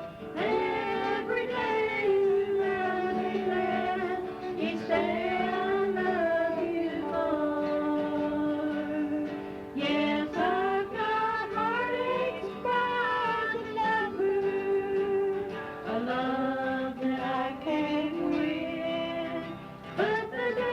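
Old home cassette recording of a man singing a song, with steady instrumental accompaniment underneath, played back from the tape.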